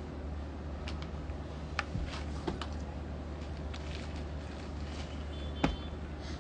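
Folded clothes being handled and set down on a tiled floor: soft rustling with a few light knocks, the sharpest just before the end. A steady low hum runs underneath.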